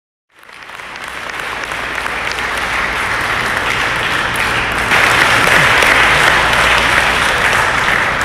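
Audience applauding, fading in at the start and growing louder about five seconds in.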